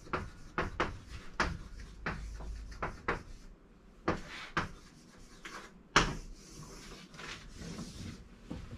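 Handwriting: a run of short knocks and scrapes from a writing tool on a writing surface, several strokes a second, with two louder knocks about four and six seconds in.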